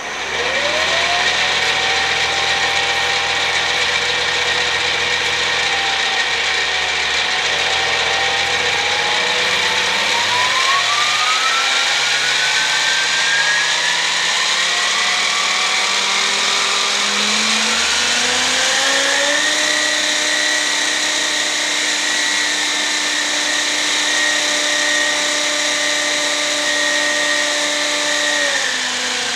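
3D-printed centrifugal turboshaft model driving a propeller: a loud whine that climbs in pitch over the first twenty seconds as it speeds up, holds steady at high speed, then falls away just before the end.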